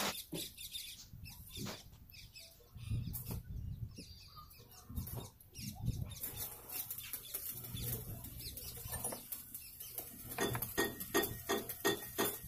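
Light metallic clicks and knocks as a nut and fittings are handled by hand inside an oil expeller's head, turning into a quick run of sharper clicks in the last couple of seconds. A low steady hum runs underneath from a few seconds in.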